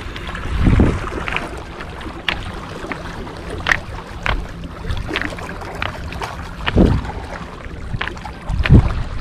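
Wind buffeting the microphone, with a steady rush and a few low gusty rumbles, along with scattered short clicks and knocks.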